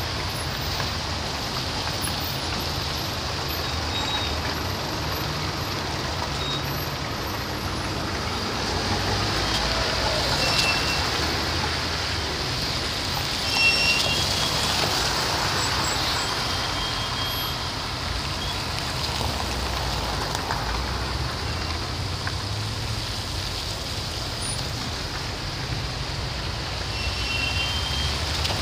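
Dense road traffic creeping along a wet, slushy roadway: engines running low and tyres hissing on wet asphalt, with one brief louder noise about halfway through.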